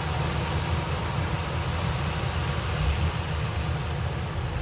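Yanmar AW82V combine harvester running at travel speed: a steady low engine drone.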